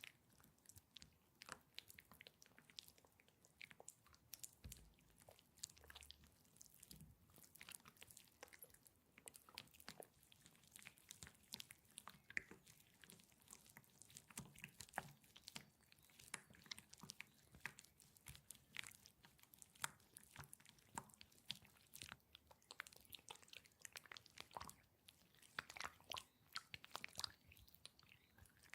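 Massage gel worked between hands close to the microphone: a dense, irregular stream of soft, wet, sticky clicks and squelches.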